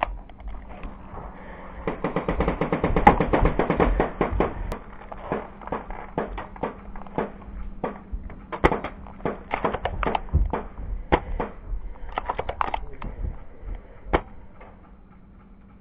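Airsoft gunfire: a dense, rapid burst of sharp snapping shots about two seconds in, then scattered single snaps and short bursts.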